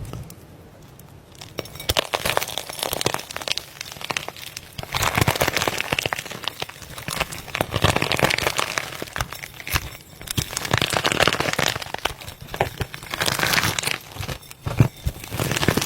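Slime being squeezed and pressed by hand, making dense crackling and popping in repeated waves every couple of seconds.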